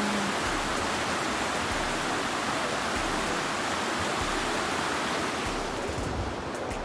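Shallow mountain stream rushing over rocks: a steady hiss of running water that softens a little in the highs near the end, with a few faint clicks.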